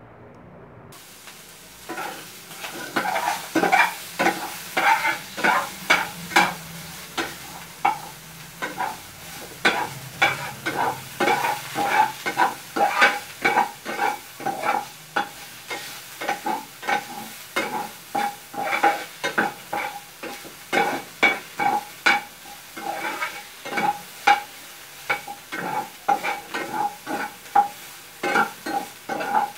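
Diced pork fat sizzling in a nonstick frying pan as it renders its lard, stirred with a metal spoon that scrapes the pan about twice a second, each stroke ringing briefly. The sizzling and stirring start a second or two in.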